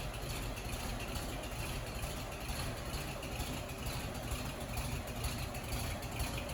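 Steady low rumble of an engine idling, with no distinct events.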